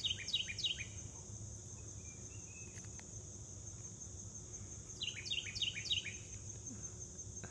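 Outdoor ambience: a high insect trill running steadily, and a bird singing a phrase of five or six quick down-slurred whistles, once at the start and again about five seconds in.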